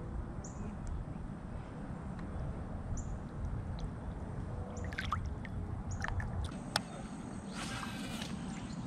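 Outdoor pond ambience heard from a kayak: a low steady rumble with scattered short, high bird chirps and a single sharp click a couple of seconds before the end.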